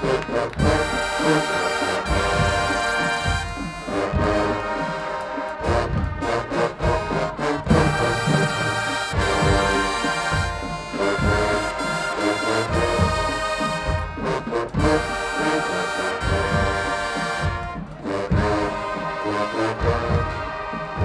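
High school marching band playing a loud brass-heavy tune, trumpets and trombones over regular bass drum hits.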